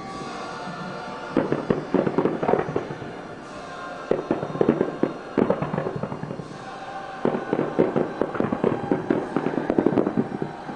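Aerial fireworks display: rapid clusters of bangs and crackling, with short lulls about three and six seconds in.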